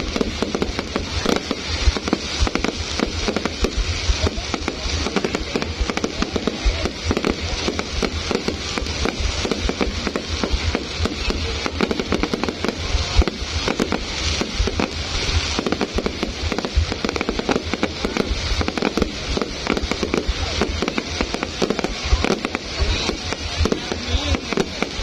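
A dense, unbroken barrage of fireworks and firecrackers, many sharp bangs and crackles every second without a pause.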